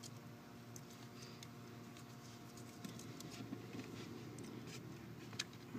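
Faint hand-handling noises of car wiring and a plastic connector: small clicks, scratches and rustles scattered through, over a low steady hum.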